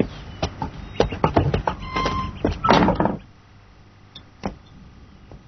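A quick series of short knocks and clicks during the first three seconds, then only a low hum.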